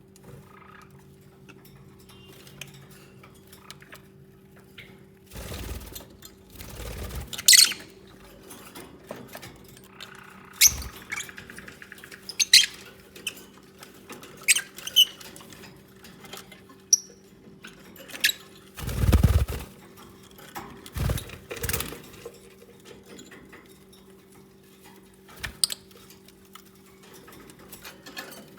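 Lovebirds giving short, sharp squeaks and chirps every second or two, with a few dull low thumps of movement, over a steady low hum.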